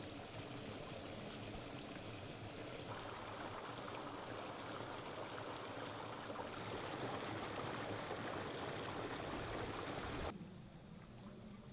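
Creek water running over rocks, a steady rush that grows louder about three seconds in and drops off suddenly about ten seconds in.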